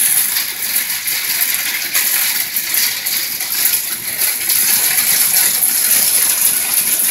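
Small ice pellets falling: a dense, steady crackle of countless tiny hits.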